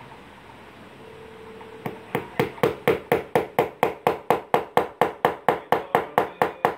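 A hammer tapping a small nail into a white table part. The taps are fast and steady, about four or five a second, and start about two seconds in. Each one is sharp with a short ring.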